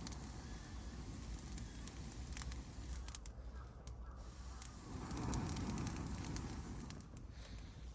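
Campfire burning, with scattered crackles and pops, and a louder rushing swell of noise about five seconds in that lasts a couple of seconds.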